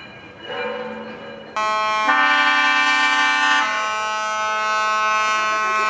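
Ship horns sounding: a low steady horn starts about a second in, then a loud many-toned horn blast comes in and holds steadily to the end, with a deeper horn tone joining it for a second or two in the middle.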